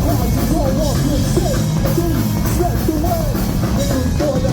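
Loud rock music with a full drum kit and guitars, playing steadily without a break.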